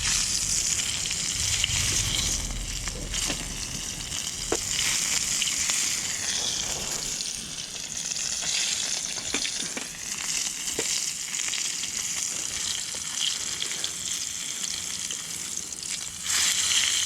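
Pieces of conger eel deep-frying in hot oil in a frying pan: a steady sizzle with a few scattered pops.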